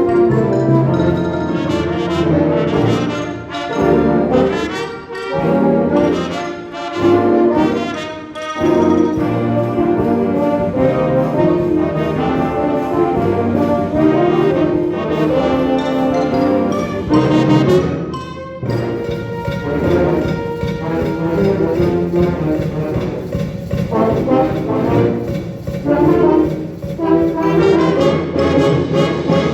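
Concert wind band playing a piece with the brass section prominent, trombones and trumpets sounding full sustained chords.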